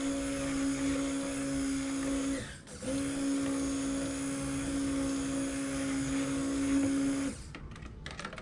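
Immersion (stick) blender running in cold-process soap batter in a plastic bucket: a steady motor hum at one pitch. It cuts out for a moment about two and a half seconds in, starts again, and stops about seven seconds in, leaving a few light knocks.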